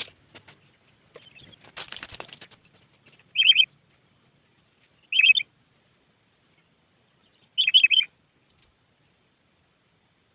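Sooty-headed bulbul (kutilang) decoy bird calling three times, each a short quick burst of chirpy notes, the last the longest. A brief rustle, like fluttering wings, comes before the first call.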